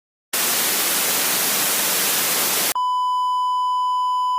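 Sudden loud hiss of static noise for about two and a half seconds, then an abrupt cut to a steady, unbroken electronic beep tone, like a TV test-tone sign-off.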